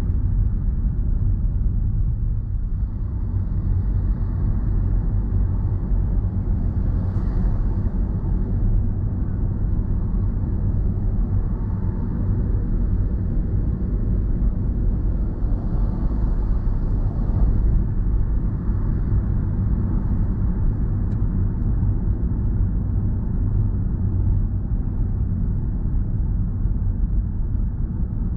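Car driving on the road, heard from inside the cabin: a steady low rumble of tyre and engine noise.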